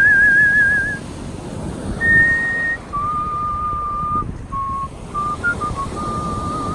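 Artistic human whistling of a melody's closing phrase. A long note with vibrato ends about a second in, then a brief higher note, then lower notes and a few short ones, ending on a held note with vibrato. Steady background rush of noise underneath.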